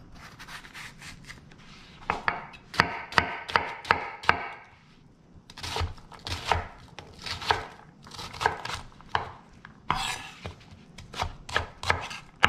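A santoku-style chef's knife dicing a large white onion on a bamboo cutting board. Quiet slicing strokes at first, then quick runs of sharp chops against the board from about two seconds in, with a short pause near the middle.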